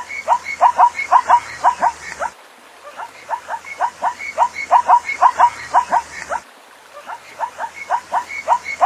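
Zebra calling: rapid series of short, high, yelping barks, about five a second, in bouts of about three seconds separated by pauses of about a second.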